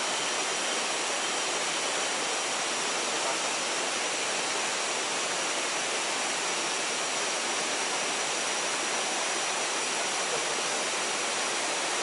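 Small waterfall and its stream pouring into a pool: a steady, even rush of water.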